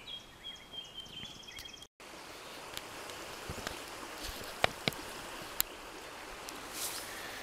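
Steady rushing of a river, with a few sharp clicks a little after the midpoint. Before that, a thin steady high tone holds for about two seconds, and the sound breaks off for an instant.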